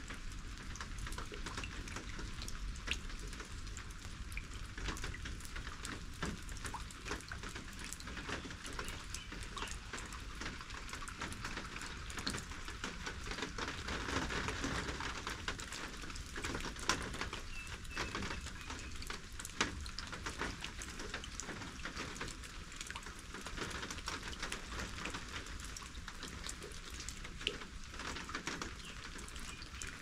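Steady rain falling, with many separate drops ticking on surfaces and a few louder single drips now and then.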